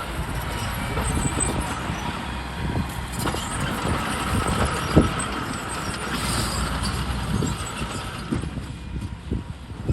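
Heavy construction machinery running: a steady low engine rumble with scattered clunks, and one sharp knock about five seconds in.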